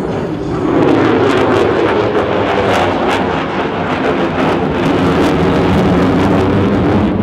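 F-35B's Pratt & Whitney F135 afterburning turbofan running in afterburner during a hard turn overhead: loud, steady jet noise with a rapid crackle, swelling about a second in.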